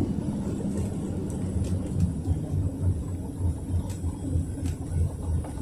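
Cabin sound of a moving PAZ 32054 bus: its ZMZ-5234 V8 petrol engine running with a low, pulsing drone over road noise, with a few faint rattling ticks.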